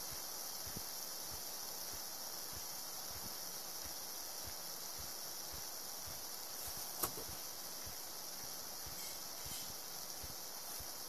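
Air hissing steadily out of the valve of a vinyl inflatable boat as it deflates, with a single sharp click about seven seconds in.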